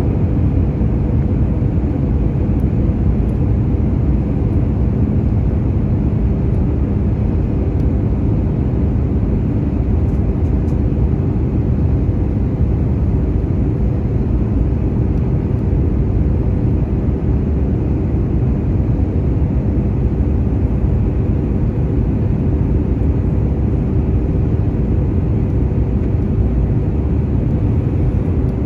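Steady engine and airflow rumble inside the cabin of an Airbus A321neo with CFM LEAP-1A engines, with a faint steady hum running through it.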